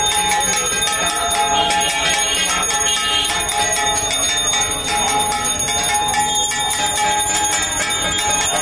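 Hand bell rung continuously during a Hindu puja: rapid, even clapper strikes with its ringing tones held steady throughout.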